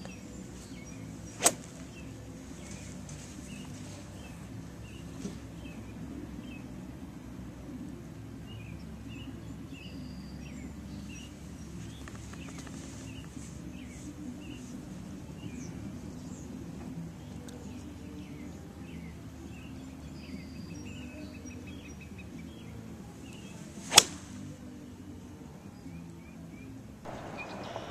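Two sharp cracks about twenty seconds apart, one near the start and one near the end, over a low steady outdoor hum. Birds chirp faintly now and then in between.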